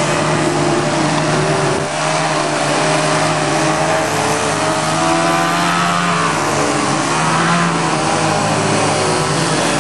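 RC 3D profile airplane's motor and propeller running, its pitch wavering up and down with the throttle as the plane tumbles and then hovers nose-up in a prop hang.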